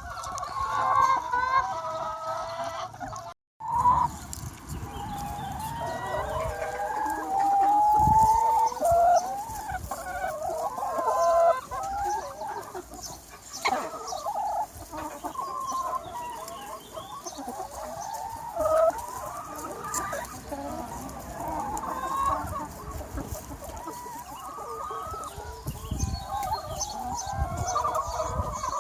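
A large flock of free-range hens clucking and calling over one another, a steady busy chorus. The sound cuts out for a split second about three and a half seconds in.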